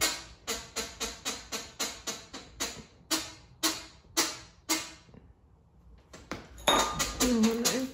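A squeaky plush toy squeezed over and over, a few squeaks a second and slowing. After a brief pause, a quicker run of squeaks near the end, with a short wavering low sound.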